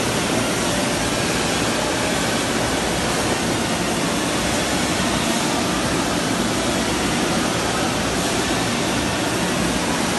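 Steady, even noise of factory machinery running on a shop floor, constant in level throughout.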